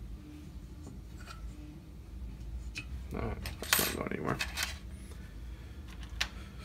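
Small metal parts and tools clinking and clattering as they are handled on a workbench, with a few separate clicks and a busier stretch of rattling from about three to four and a half seconds in.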